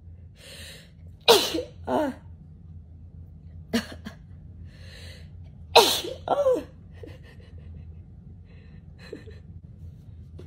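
A person sneezing several times, set off by a nasal swab. Each sneeze starts with a breathy catch of breath. The loudest come about a second in and about six seconds in, and a short one falls in between.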